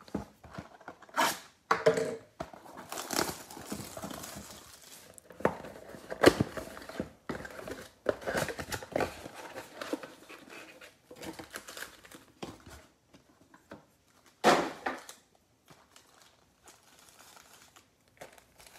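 Plastic shrink wrap being torn and crinkled off a trading-card box, then the cardboard box being opened and its foil packs handled: irregular crinkling and tearing, with one louder rip about fourteen and a half seconds in.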